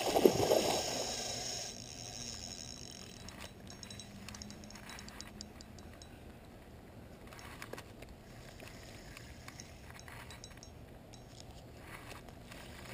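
A hooked carp splashing and thrashing at the surface for the first second or two, then faint clicking and ticking from the spinning reel as the fish is played on the rod.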